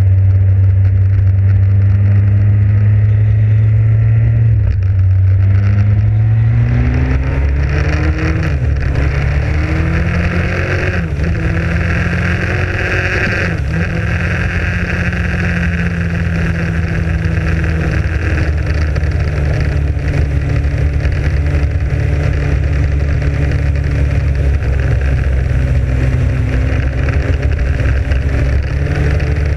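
Motorcycle engine pulling away from low speed, rising in pitch, with two brief dips about eleven and thirteen seconds in as it changes gear, then running steadily at cruising speed. Wind rushes over the microphone as speed builds.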